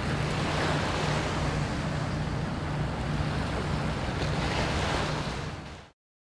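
Low, steady drone of a passing inland motor cargo ship's diesel engine under a rush of wind on the microphone and river water; the sound cuts off suddenly near the end.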